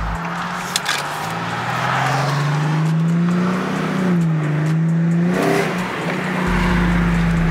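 Infiniti G37's 3.7-litre VQ37 V6 engine pulling under acceleration, its pitch climbing, dipping briefly about four seconds in, then climbing again.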